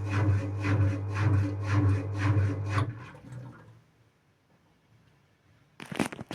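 Indesit WIU81 washing machine turning its drum in the wash phase: the motor hums while the laundry swishes about twice a second, then the motor stops about three seconds in and the drum coasts to rest. Just before the end come a few sharp clicks or knocks.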